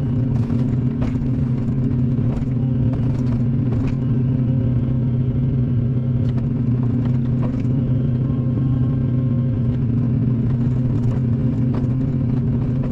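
Hydraulic excavator's diesel engine running steadily under load while its bucket digs out a tree stump, with scattered sharp knocks and clicks as the bucket works the soil and roots.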